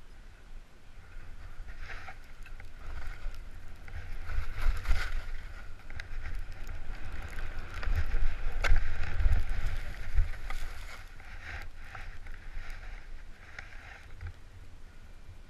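Sliding down a ski slope: edges hissing and scraping over the snow in repeated surges, with wind rumbling on the camera microphone. It builds up, is loudest in the middle and eases off near the end.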